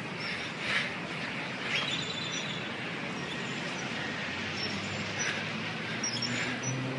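Outdoor street ambience: a steady background hiss with faint, scattered bird chirps. A low steady hum comes in near the end.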